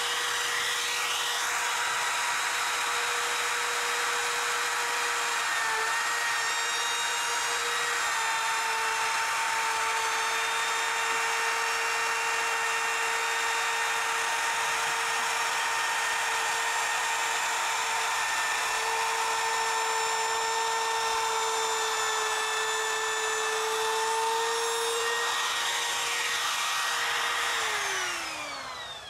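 Compact trim router with a 3/8-inch round-over bit running at a steady high pitch as it rounds over the edge of a wooden board, its pitch dipping slightly now and then under the cut. Near the end it is switched off and winds down.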